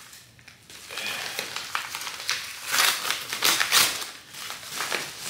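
Plastic packaging bags crinkling and rustling in irregular bursts as they are handled and opened.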